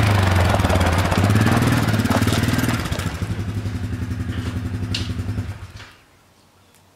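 2010 Yamaha Grizzly 550 ATV's single-cylinder four-stroke engine running as it is ridden in, rising in pitch briefly about two seconds in, then running steadily until it stops about five and a half seconds in.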